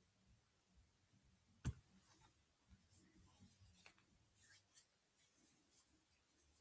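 Near silence: room tone with a single short click about one and a half seconds in and a few fainter ticks.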